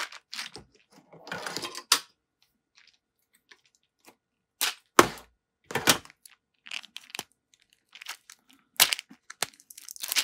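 Plastic packaging on a case of sealing-wax beads being unwrapped and torn open, in irregular crinkles and crackles with a few sharp snaps.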